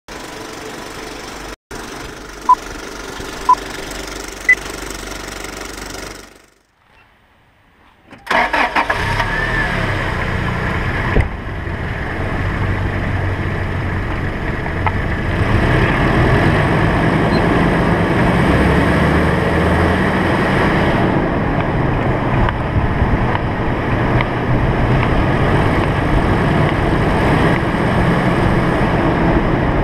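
Three short electronic beeps a second apart, the last one higher, over low noise near the start; after a brief near-silent gap, loud steady rushing wind and road noise with a low hum from a camera travelling down the road alongside a downhill longboard run.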